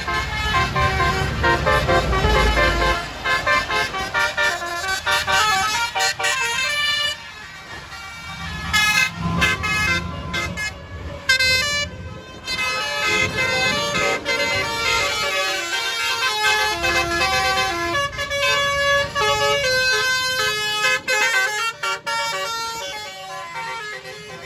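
Tour bus Basuri telolet horn playing quick multi-note melodies, note after note, with short breaks between tunes, over the low rumble of the bus's running engine.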